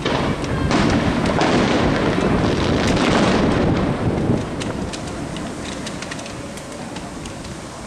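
Fireworks display: a loud, dense barrage of bursts and crackling from about a second in to about four seconds in, then quieter with scattered crackles.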